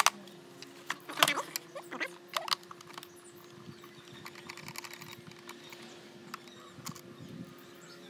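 Screwdriver and a vacuum cleaner's plastic housing clicking and knocking as screws are taken out and the casing is handled: a few sharp clicks in the first seconds, the loudest about a second in, then lighter scattered ticks.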